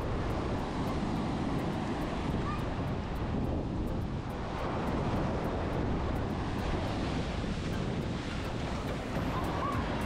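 Surf breaking and washing up on a sandy beach, with wind buffeting the microphone in a steady low rumble.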